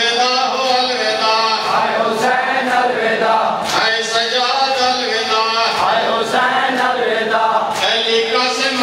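Shia Muharram noha lament: a man chants through a microphone with a group of mourners' voices joining in. Sharp hand-on-chest slaps of matam keep a steady beat about once a second.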